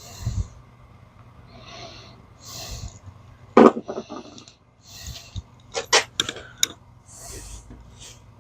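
A person's breathing close to the microphone, soft hissy breaths every second or two, with sharp clicks and taps of small parts and tools being handled and set down on a workbench.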